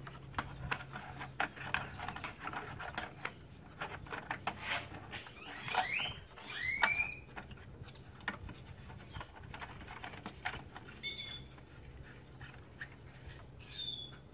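Light clicks and taps of small plastic and metal parts being fitted by hand onto a plasma cutter's internal air filter and regulator. A bird chirps over it: two rising chirps about six and seven seconds in, the loudest sounds here, then short high calls near eleven seconds and again near the end.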